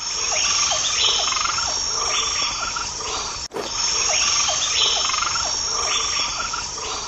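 Forest ambience of insects and frogs: a steady high insect trill, with short frog-like calls repeating about twice a second. It cuts out for an instant about halfway through.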